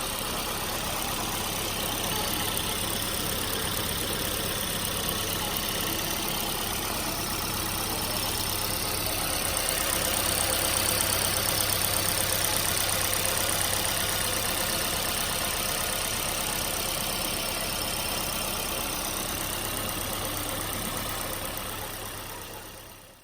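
Toyota Aqua's 1.5-litre four-cylinder petrol engine running steadily at idle, fading out near the end.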